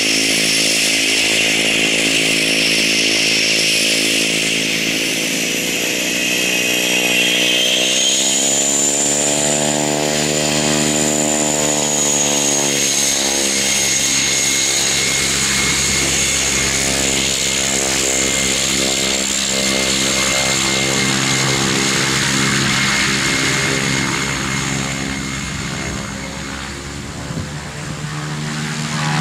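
Cessna 208B Grand Caravan's PT6A turboprop running on the ground: a steady buzzing propeller drone with a high turbine whine over it. About eight seconds in, the propeller note and the whine rise in pitch as power comes up, then hold steady, with a brief dip in loudness near the end.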